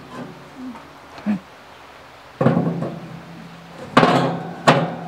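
Steel parts of a Char-Griller Smokin' Pro charcoal smoker's firebox clanking as they are handled. There are three sharp metal clanks that ring on briefly: one about two and a half seconds in, and two close together near the end.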